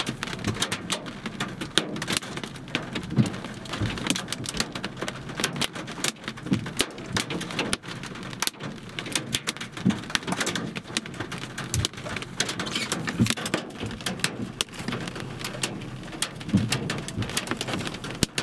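Rain mixed with small hailstones pelting the vehicle's windshield and roof: a dense, irregular patter of sharp ticks and taps, with a few soft low thumps a few seconds apart.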